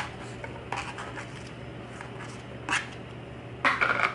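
Diced onion scraped off a plastic plate into a nonstick frying pan: a few short scrapes and taps of onion pieces landing, then a louder clatter near the end as the plastic plate is set down on the counter. A steady low hum runs underneath.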